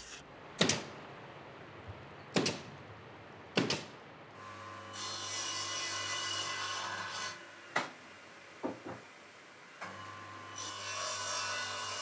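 Woodworking power tool in a workshop: a few wooden knocks as pieces are handled, then an electric bench machine runs with a steady low hum, giving a rasping hiss twice as wood is pressed against it.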